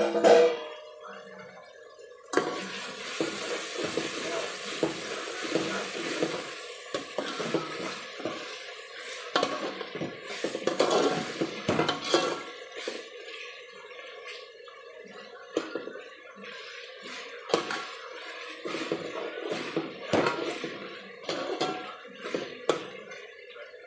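Metal ladle stirring a simmering vegetable and masala mixture in an aluminium pot, scraping and clinking against the pot's sides. Over it runs a hiss of the cooking liquid that starts about two seconds in.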